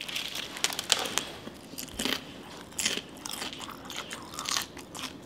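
Biting into and chewing a crispy fried taco shell, with irregular crunches and crackles as the shell breaks in the mouth.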